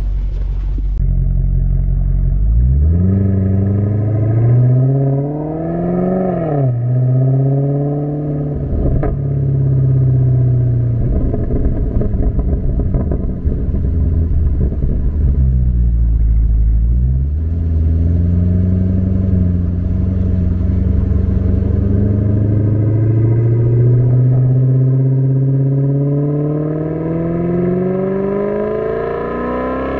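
Maserati GranCabrio S's 4.7-litre Ferrari-derived V8, heard from the open cabin. It idles briefly, then the revs climb as it pulls away, dropping sharply at two upshifts. After a short dip midway, the revs build slowly and steadily through the second half.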